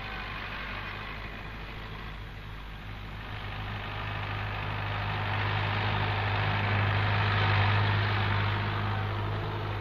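David Brown Selectamatic tractor engine running steadily, growing louder from about three seconds in and easing a little near the end.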